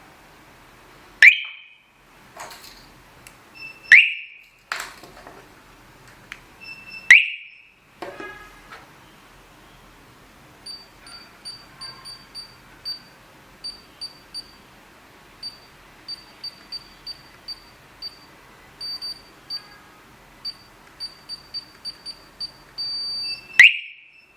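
Wireless solar alarm siren sounding short, loud rising chirps: three in the first eight seconds and one near the end. Between them comes a long run of short high-pitched beeps at uneven spacing, the last one held longer.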